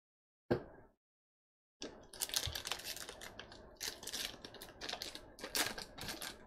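A Topps Allen & Ginter baseball card pack's wrapper being torn open and crinkled by hand: a dense run of crackling that starts about two seconds in and swells several times. A single sharp tap comes just before, about half a second in.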